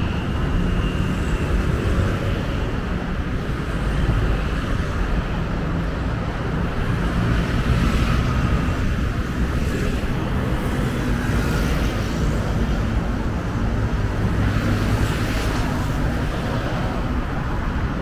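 Steady road traffic: cars and motorcycles passing on a busy multi-lane road, a continuous rumble that swells a little as vehicles go by.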